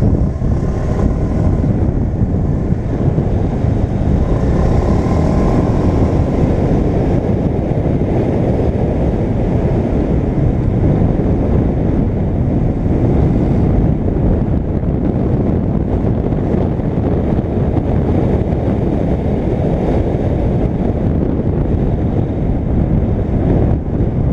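Steady rush of wind on the microphone of a moving 125cc scooter, with the scooter's engine running underneath at cruising speed.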